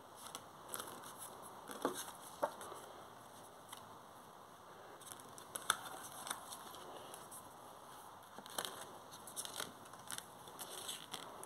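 Scattered light clicks and rustles over a faint steady hiss: handling noise from a hand-held phone as it is moved about.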